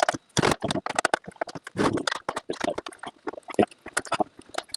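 Rapid, irregular clicking and rattling of hard plastic parts as a toy RC car is handled and taken apart.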